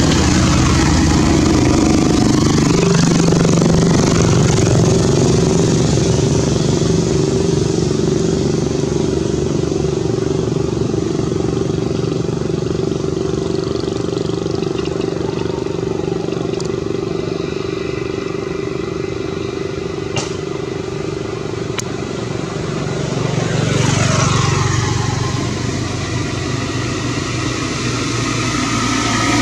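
Motor vehicle engine running steadily, like motorbike traffic. About three quarters of the way in, a vehicle passes with its pitch falling.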